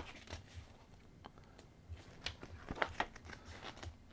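Faint handling sounds: scattered small clicks, ticks and rustles of small LED-kit parts and their packaging being handled, a little busier around two to three seconds in.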